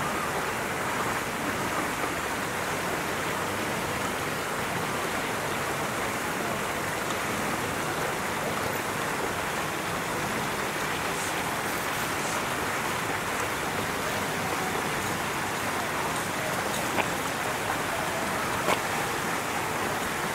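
Steady, even hiss of outdoor background noise, with a few faint clicks near the end.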